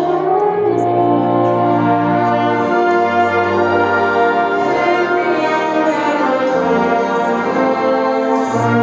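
Music: slowly changing held chords over a steady bass line, rich and brass-like in sound.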